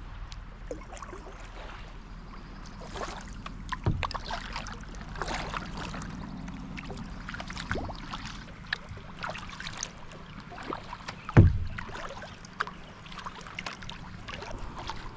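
Kayak paddle strokes: the blades dip and drip, making small irregular splashes and trickles. A single dull thump comes about two-thirds of the way through.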